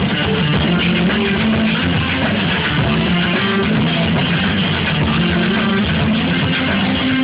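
A live rock band playing an instrumental passage, with distorted electric guitar over bass and drum kit, loud and dense, recorded on a phone with the top end cut off.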